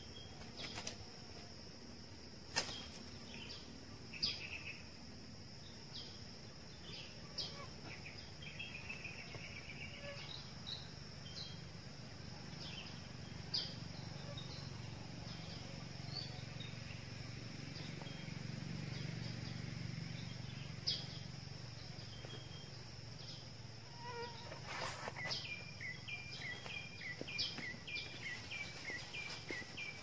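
Forest ambience: a steady high insect drone with scattered short bird chirps, and a low rumble that swells and fades in the middle. From about 25 seconds in, a bird call of short falling notes repeats about twice a second.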